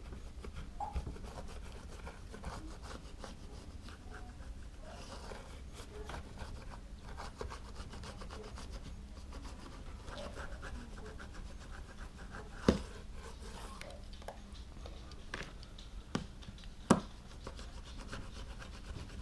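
Rotary cutter's round blade rolling through a rubber band saw tire, a steady rasping scratch made in repeated pressing passes. Two sharp knocks come in the second half.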